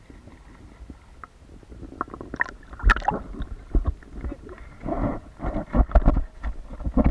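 Sea water sloshing and gurgling against a camera held at the surface, with irregular muffled thumps as it dips in and out of the waves. Quiet at first, busier and louder from about two seconds in.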